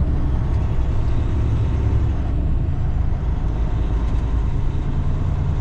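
Semi truck's diesel engine running steadily, a low, even drone heard from inside the cab.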